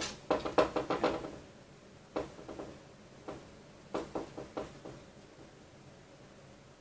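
Cable tie being cinched tight, its ratchet clicking in a quick run for about the first second, then a few scattered clicks.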